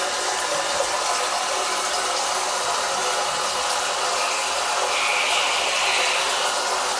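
1978 American Standard toilet refilling after a flush: water runs steadily through the fill valve into the tank and bowl, with a brief rise in hiss about five seconds in.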